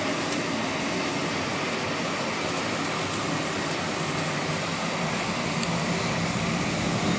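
Steady cabin noise inside an Airbus A320 with IAE V2527 engines running, a continuous hum and rush with a slight swell near the end.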